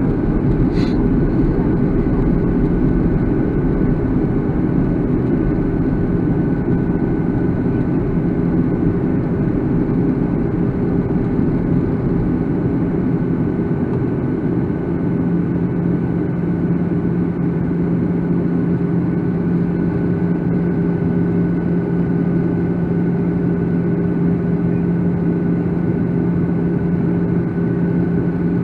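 Steady drone of a jet airliner in flight, heard inside the cabin: engine and airflow noise with a low hum that grows stronger about halfway through. One faint tick about a second in.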